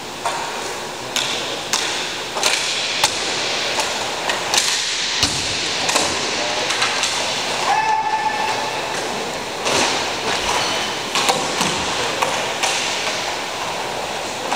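Hockey play on a dry indoor rink: a steady echoing din broken by many sharp clacks and knocks of sticks and hits against the boards. A brief high whistle-like tone sounds about halfway through.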